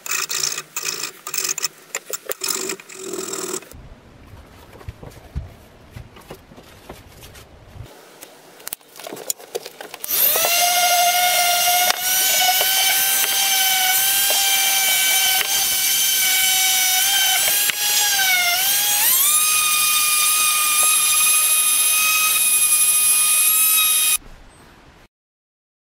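Ryobi random orbital sander starting up about ten seconds in and running with a steady whine. Its pitch dips briefly, then steps up higher, and it stops shortly before the end. Before it starts, there are quick hand rubbing strokes on the cleaver handle.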